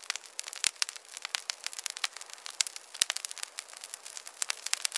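Fire crackling: a dense, irregular run of sharp snaps and pops, several a second, with nothing deep beneath them.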